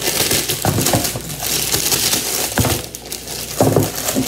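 Plastic bag of small round potatoes crinkling and crackling as it is handled and pulled open, with a few dull knocks of potatoes dropping into a foil roasting pan.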